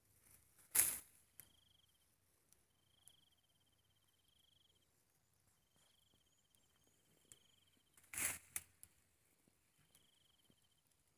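Faint, short insect trills repeating every second or two. Twice, about a second in and about eight seconds in, a brief scraping rustle of a hand digging into a rice-field crab burrow through soil and dry rice stubble.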